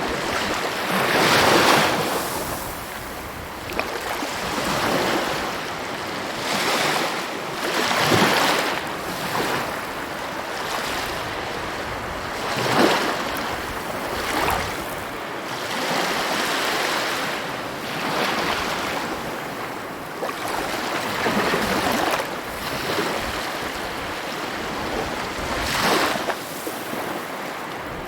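Sea waves breaking and washing on a shore, a continuous rushing surf that swells and falls back every few seconds.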